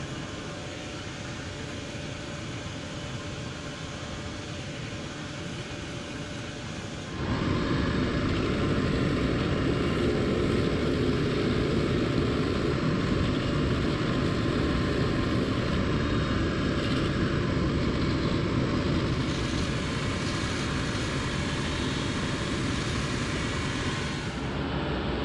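A cobbler's finishing machine runs steadily while the edge of a rubber boot sole and heel is sanded on its spinning sanding drum. The noise steps up sharply about seven seconds in and stays loud.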